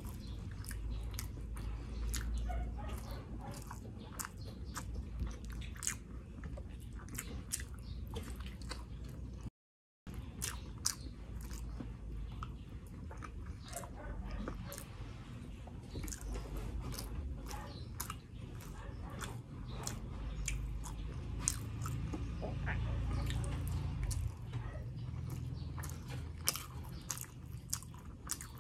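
Close-miked chewing and biting of sisig and fried rice eaten by hand, with many short wet mouth clicks and smacks. The sound drops out completely for a moment just before ten seconds in.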